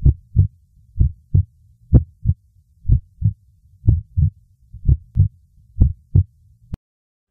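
Heartbeat sound effect: seven paired low thumps in a lub-dub rhythm, about one pair a second, followed by a single sharp click near the end.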